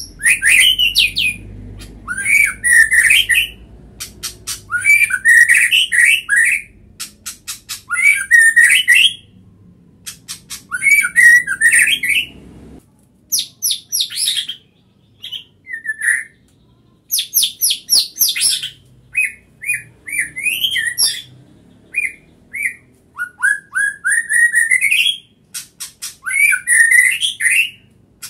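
Male white-rumped shama singing: loud bursts of varied whistled phrases mixed with rapid runs of sharp clicking notes, each burst lasting a second or two with short pauses between.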